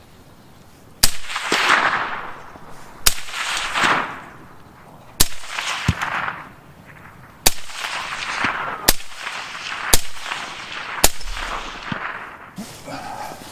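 Seven shots from a suppressed Bear Creek Arsenal 7.62x39 rifle. Each is a sharp report that trails off in an echo. The first shots come about two seconds apart and the later ones faster.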